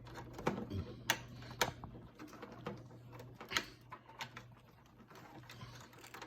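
Irregular clicks and taps of plastic plugs and cables being handled while a USB cable is worked into a tight port behind a TV, over a low steady hum.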